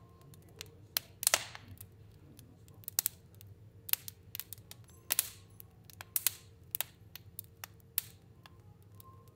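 Fire burning in a stove, crackling with irregular sharp pops and snaps, a few louder ones standing out, over a faint steady low hum.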